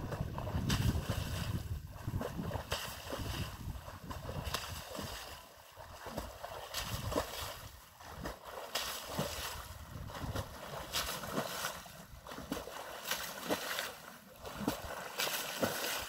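A swimmer doing butterfly stroke in a lake, the water splashing with each stroke, roughly once a second.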